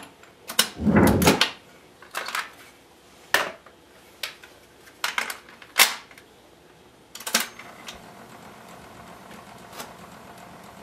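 Clicks and clunks of a 1959 RCA SCP-2 Sound Tape cartridge player as a tape cartridge is seated and its controls are pressed, about eight sharp clicks and knocks spread over the first seven seconds. A faint steady hiss comes in about seven and a half seconds in.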